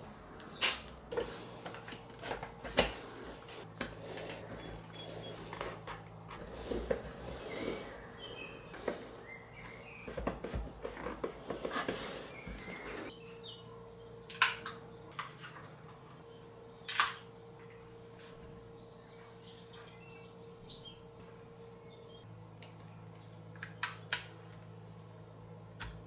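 Handling noise of small plastic parts: a string of sharp clicks, taps and rustles, a few of them louder, over a faint steady hum.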